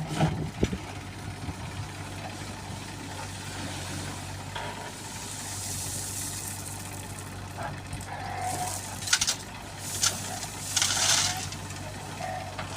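Diesel engine of the loading machinery running steadily, with a few clanks right at the start and several short hissing bursts later on.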